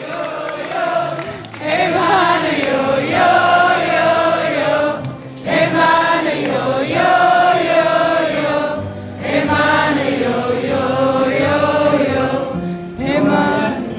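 Live music: wordless, chant-like sung phrases of about four seconds each, with short breaks between them.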